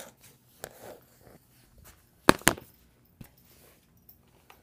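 Handling noise of the recording phone being moved and propped up: scattered light knocks and rustles, with two sharp clicks in quick succession a little past two seconds in.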